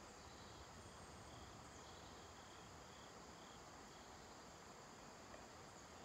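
Near silence: faint outdoor ambience with a small high-pitched insect chirp repeating steadily about twice a second.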